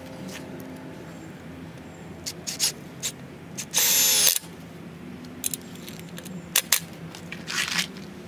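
Cordless impact drill with a nut-driver bit running a hex-head self-drilling screw through a bracket into a steel chain-link fence pole. It runs in one short burst of about half a second midway, with a few sharp clicks and knocks before and after.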